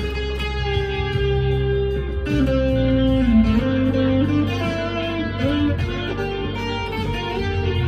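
Harley Benton SC Custom II electric guitar played through an amp's crunch channel, giving a lightly overdriven tone: a lead line of sustained single notes with a string bend that dips and comes back about three seconds in, over ringing low notes.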